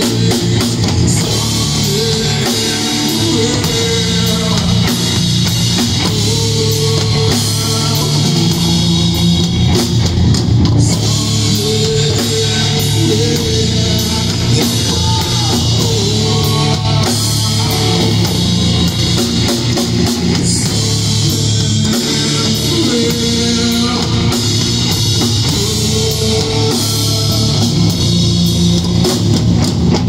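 Doom metal band playing live: electric guitar and bass guitar holding low, sustained chords over a drum kit with regular cymbal strikes, in an instrumental passage without vocals.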